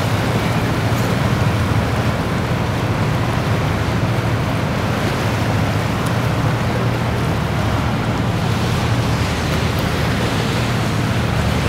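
Motor boat under way: its engine runs with a steady low drone under the rush of water along the hull and wind noise.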